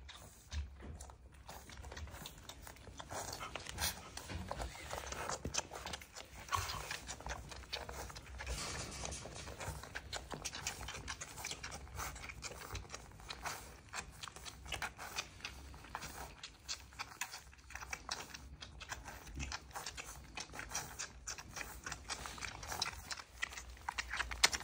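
Australian Cattle Dog puppies suckling from their mother and shuffling in wood shavings: a steady run of small wet clicks and rustles.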